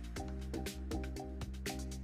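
Background music with a quick, steady beat and short melodic notes.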